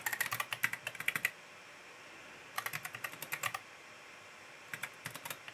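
Typing on a computer keyboard: three quick bursts of keystrokes separated by short pauses.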